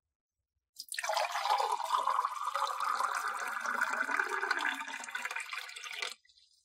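Coconut water poured in a thin stream into a drinking glass, starting about a second in and stopping abruptly near the end; its pitch rises steadily as the glass fills.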